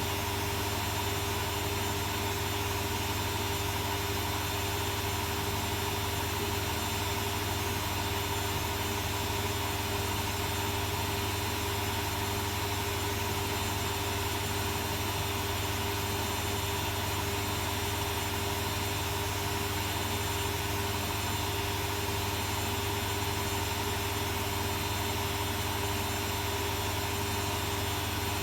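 Arçelik 3650 SJ washing machine running through its cycle with a duvet inside: a steady, unchanging hum with a constant whine over it.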